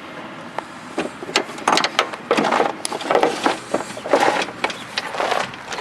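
Irregular clatter and sharp knocks of hands and tools working on the riding mower's steering, in quick uneven bursts after about a second.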